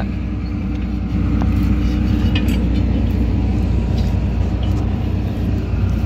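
An engine idling steadily nearby, a constant low hum, with a few faint ticks.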